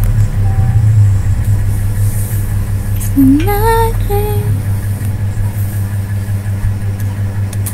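A steady low hum, with a deeper layer that drops away about four and a half seconds in. About three seconds in, a woman makes one short murmur rising in pitch, like a puzzled "hmm?". A few faint clicks are also heard.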